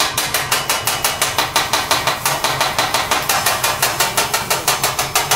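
Metal teppanyaki spatula and fork clacking in a fast, even rhythm, about seven strikes a second, imitating a chugging train.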